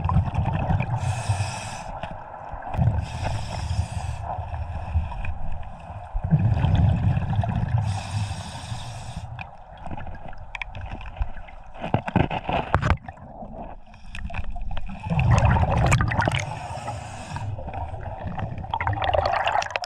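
Scuba diver breathing underwater through a regulator, heard from the camera: a hissing inhale through the demand valve, then a low rumble of exhaust bubbles, repeated over several breaths. A few sharp knocks fall between breaths.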